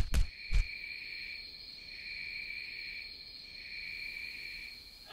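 A steady high insect trill, like crickets, swelling and fading about every second and a half. A few short knocks sound at the very start.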